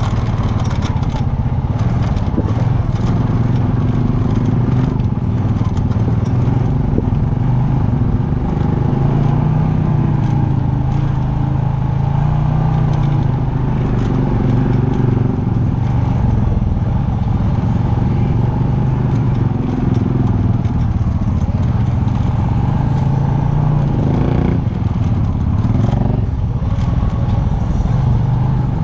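ATV engine running continuously, its pitch rising and falling gently with the throttle, with some rattling. A short noisier patch comes near the end.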